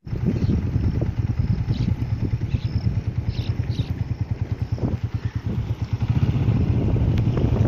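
Wind buffeting the microphone: a heavy low rumble that flutters rapidly and irregularly in loudness.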